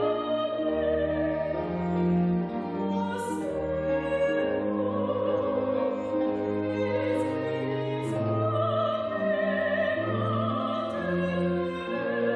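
Slow classical music from a string ensemble led by violins: long, sustained melody notes with vibrato over a slowly moving bass line.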